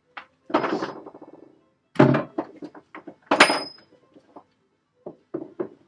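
Heavy iron leg-vise parts being handled and set down, clunking: a few separate knocks, the loudest about two seconds in, and one a little after the middle that rings briefly like metal.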